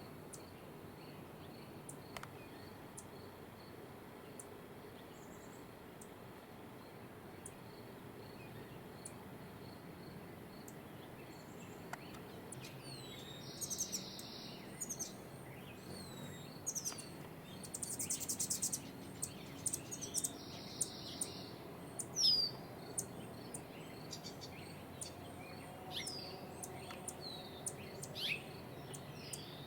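Songbirds chirping and singing: from about halfway in, short sweeping chirps and a buzzy trill repeated three times, over a faint, steady insect-like pulsing in the first half.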